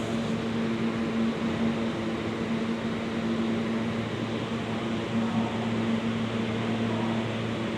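A subway train standing in the station, its air-conditioning and onboard equipment giving a steady hum and hiss with a low drone.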